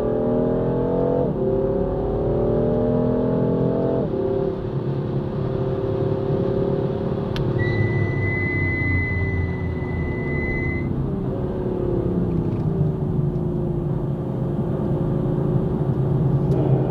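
Car engine under hard acceleration, heard from inside the cabin: the pitch climbs, drops with an upshift about a second in, and climbs again to a second upshift about four seconds in. It then holds and falls as the car lifts off and brakes for a corner. A steady high beep sounds for about three seconds midway.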